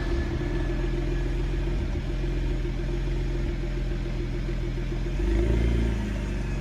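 BMW Z4 35i's twin-turbo straight-six idling unevenly just after a cold start, misfiring because its fuel injectors leak fuel into the bores while parked. A little over five seconds in, the engine speed briefly rises, then settles back.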